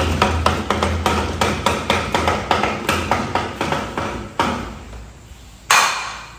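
Rapid, evenly spaced knocks, about four a second, fading out over the first four seconds, then one louder sharp knock with a short ring near the end.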